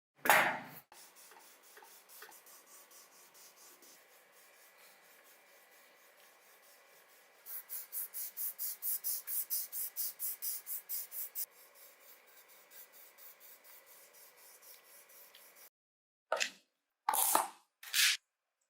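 Fast back-and-forth scrubbing strokes, about four a second, loudest for a few seconds in the middle, as a surface is rubbed clean by hand. Near the end come three short, sharp hissing bursts.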